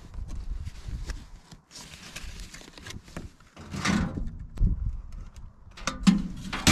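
Mailbox lids being lifted and knocking shut, with paper cards and envelopes rustling and clicks from handling; the loudest knocks come about four seconds in and again near the end.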